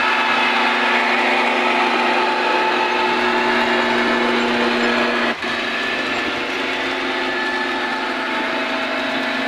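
Model diesel locomotive running on the layout, its DCC sound decoder playing a steady diesel engine drone through the loco's small speaker, with wheel noise on the track. The sound dips briefly a little over five seconds in.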